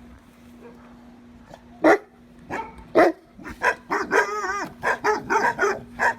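A dog barking: two loud single barks about a second apart, then a quick string of barks with a wavering, drawn-out yelp among them.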